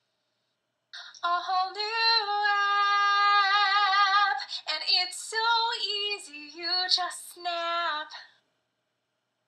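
A woman singing a cappella, a cover song with long held notes and vibrato. It starts about a second in and cuts off abruptly near the end.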